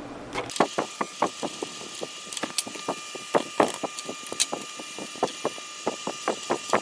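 Hand tap in a tap wrench cutting a thread in a small nut held in a lathe chuck, fast-forwarded: rapid, irregular clicking and scraping over a steady hiss, starting about half a second in.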